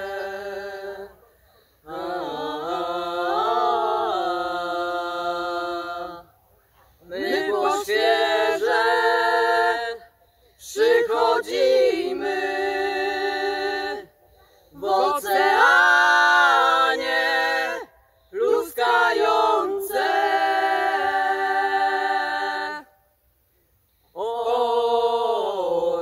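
A small group of voices singing a Polish song a cappella in harmony, in long held phrases with short breaths between them.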